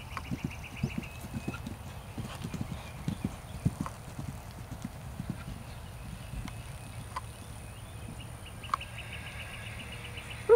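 Holsteiner gelding's hooves thudding on grass turf at the canter: dull, uneven hoofbeats, strongest in the first half and fainter as the horse moves away.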